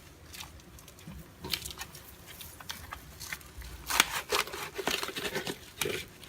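Rustling, crinkling handling noise with irregular sharp clicks and scrapes, busiest and loudest from about four seconds in.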